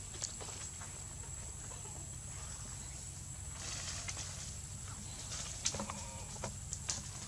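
Soft rustling and scattered footsteps on dry leaves and ground as a handheld camera is carried, over a faint steady outdoor hiss, with a short animal call about six seconds in.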